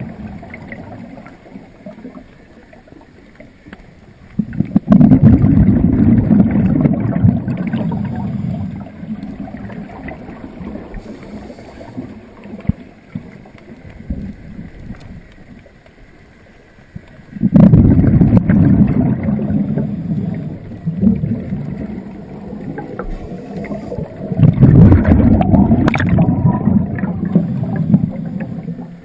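Exhaled air bubbling out of a scuba diver's regulator underwater: three loud bursts of bubbling, each starting suddenly and fading over a few seconds, with quieter stretches between.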